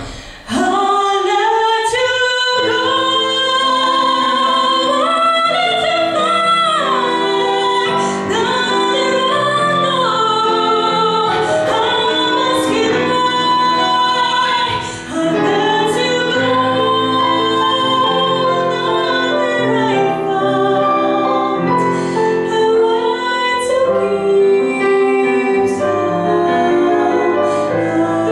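A young woman sings a slow ballad with a digital piano accompanying her in chords. Several held notes waver with vibrato, and there is a short break in the phrase about halfway through.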